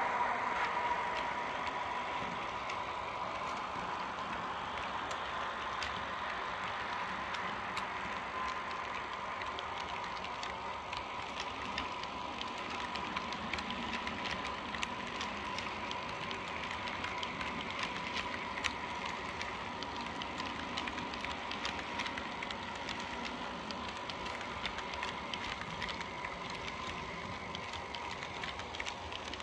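H0-scale model train running on the track: a steady thin electric-motor whine with a scatter of small, irregular clicks and rattles from the wheels on the rails.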